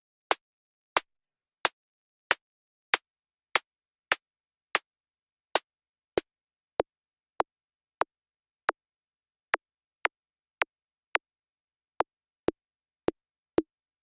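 2hp Snare Eurorack module playing synthesized snare hits, one about every 0.6 seconds. Each hit is short and crisp, with a low tone in it that grows stronger near the end.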